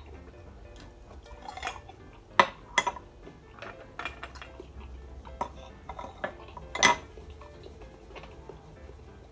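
Large spider conch shells clacking and clinking as they are picked up and handled: a handful of sharp, hard knocks, the loudest about two and a half seconds in and again near seven seconds.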